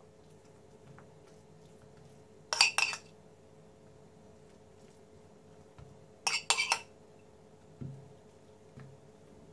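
Metal spoon clinking against a porcelain plate as cheese filling is knocked off it: a quick group of clinks about two and a half seconds in, and another group of three about six and a half seconds in.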